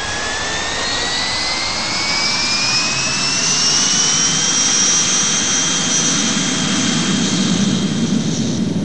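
Jet airliner engines at takeoff power: a turbine whine that rises in pitch and levels off about four and a half seconds in, over a steady roar. A deeper rumble swells near the end as the aircraft climbs away.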